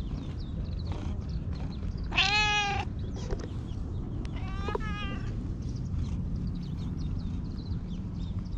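Black stray cat meowing: one long, loud meow about two seconds in, then a shorter call about five seconds in, over a steady low rumble.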